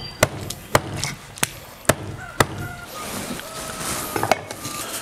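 Cleaver chopping a grass carp fillet into pieces on a thick wooden chopping block: five sharp chops about half a second apart. Near the end there is a soft hiss with a few light clicks.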